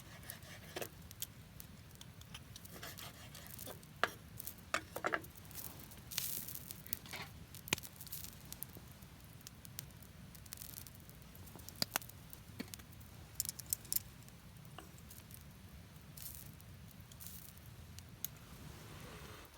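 Campfire crackling, with irregular sharp pops and snaps at random intervals.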